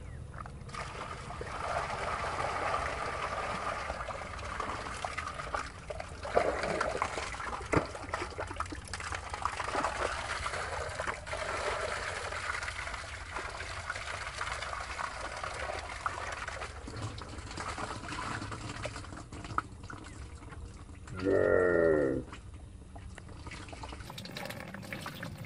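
Muddy water and silt pouring and trickling out of a tipped plastic jug into a wire basket strainer holding live eels, with uneven splashes and small clicks. Near the end, a short gliding vocal call.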